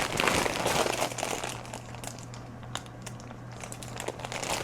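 Bags of wool crinkling and rustling as they are handled and moved about, with a few light clicks; the rustling is busiest at the start and again at the end.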